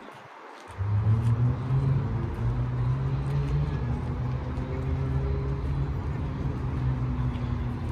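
A motor vehicle's engine running close by: a loud, low, steady rumble with a hum that starts suddenly about a second in.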